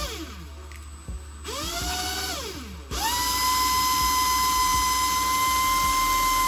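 Cordless drill spinning a cardboard paper-towel tube to wind fishing line onto it. The motor whines in short bursts at first: one at the start, then one that rises, holds about a second and winds down. From about three seconds in it runs at steady full speed.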